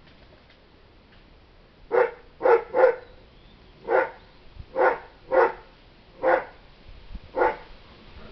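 A dog barking off-camera: eight short barks in irregular groups, starting about two seconds in.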